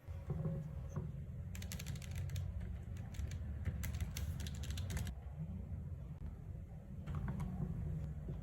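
Keycool KC84 Pro mechanical keyboard being typed on: a quick run of keystrokes for about three and a half seconds, then a few more keys near the end, over a steady low rumble.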